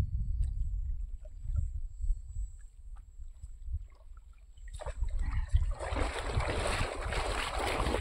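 Low wind rumble on the microphone, then about halfway through a loud rush of water splashing and streaming as a wet cast net is hauled up out of the shallow lake.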